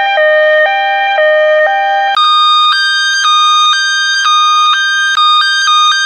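Ambulance hi-lo siren sound effect: a buzzy electronic tone alternating between two pitches, each held about half a second. About two seconds in it jumps to a pair of pitches roughly an octave higher and keeps alternating.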